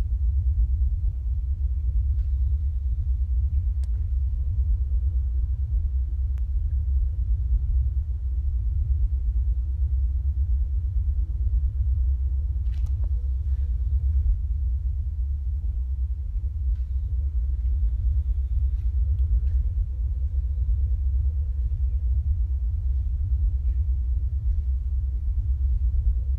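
A steady, loud low rumble with a few faint clicks scattered through it.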